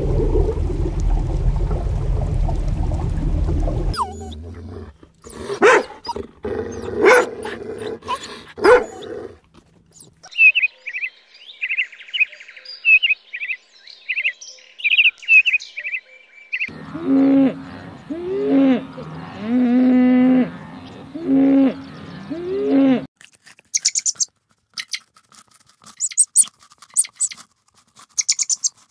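A string of different animal sounds, one after another: a steady low rumbling noise, scattered clicks, a run of quick high chirps, then about six pitched calls that bend in pitch, about a second apart, and finally sparse, crisp high clicks.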